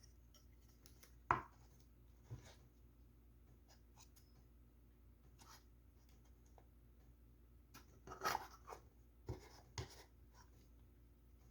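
Faint handling sounds from a prize figure and its packaging being unboxed: scattered light clicks, rubs and rustles. There is a sharper knock about a second in and a cluster of rustles and clicks about eight seconds in.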